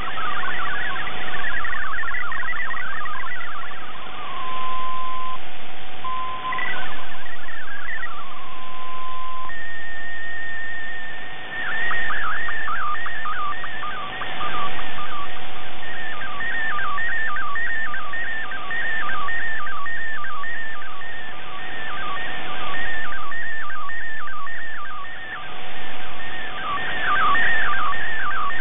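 MFSK digital data tones received off shortwave: a fast warble of changing pitches over radio hiss. About four seconds in, the warble stops for a few steady held tones, one briefly stepping up and gliding back down. A single higher held tone about nine seconds in leads into a fresh run of warbling data, the start of an image being sent. The signal swells and dips several times with shortwave fading.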